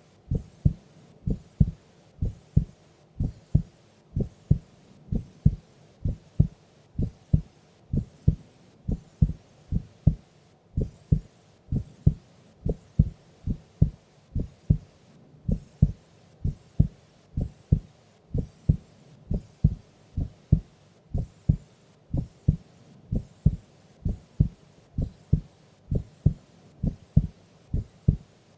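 A sleeping woman's heartbeat, recorded close against the chest: a steady, even lub-dub of paired low thumps, at a resting pace.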